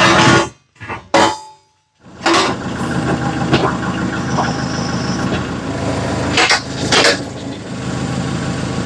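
Kubota L4060 tractor's diesel engine running steadily from about two seconds in, as its front loader lifts a quick-attach plate. Two short knocks come about two-thirds of the way through, and a few loud short knocks come in the first second and a half.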